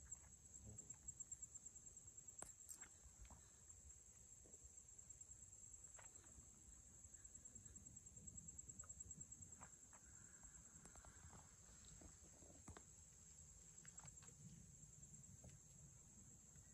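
Near silence with a faint, steady, high-pitched insect trill, likely crickets, carrying on throughout, and a few scattered faint ticks and crunches.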